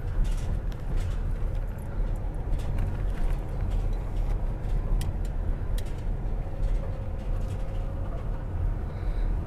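Steady low road rumble of a car driving on a gravel road, heard from inside the cabin, with scattered sharp clicks and a faint steady whine.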